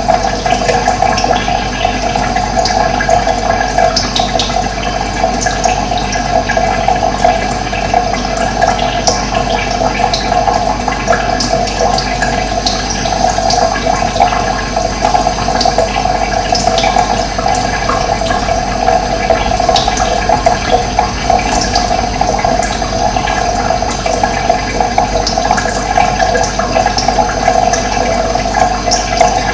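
Running water flowing steadily, an even rush with many small splashes.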